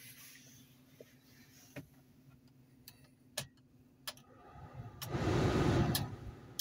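A Ford Explorer's 4.0 V6 idling as a faint steady hum inside the cabin, with a few light clicks from the dash controls. About five seconds in, the heater blower fan rushes up loudly for about a second and then cuts off abruptly as the fan-speed knob is turned.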